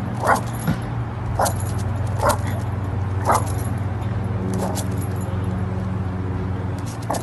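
A dog giving short yipping barks, four in the first few seconds and a fainter one near the end, over a steady low hum.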